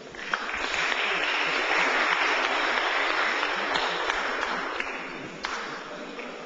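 Audience applauding, swelling quickly and then gradually dying away.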